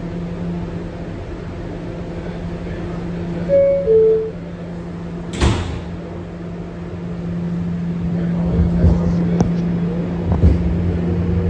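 Inside an R211A subway car: a steady electrical hum, then a two-note descending chime about three and a half seconds in and a single sharp thump of the sliding doors closing about two seconds later. From about eight seconds the car starts to move, the rumble growing louder with clicks from the wheels on the rails.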